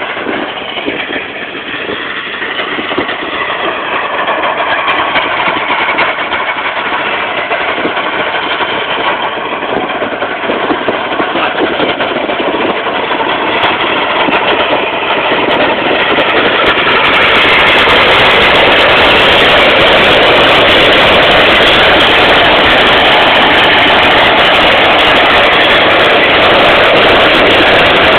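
Steady rushing noise from riding a bike fast along a paved lane, wind on the microphone mixed with rolling and rattling. It grows louder about two-thirds of the way through and stays loud.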